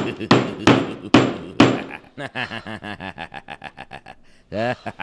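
Heavy, rapid thumps of fingers jabbing a pocket calculator's keys against a desk, about three a second. After about two seconds these give way to a quicker, fading run of short pitched pulses, about five a second, and a brief tone that bends up and down near the end.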